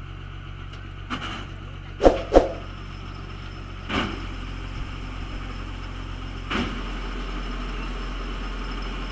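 Tow truck's engine running steadily at idle, with a few sharp clacks or knocks, the loudest two in quick succession about two seconds in; the engine note shifts slightly about two-thirds of the way through.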